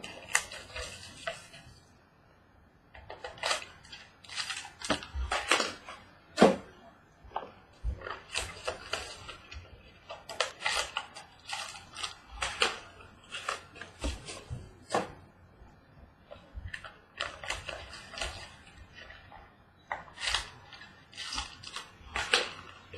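Hands opening trading-card boxes and their wrapping: irregular bursts of crinkling, rustling and light tapping of cardboard and plastic.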